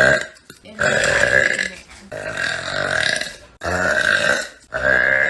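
A person burping over and over: a string of long, drawn-out belches, each about a second long, with short pauses between them.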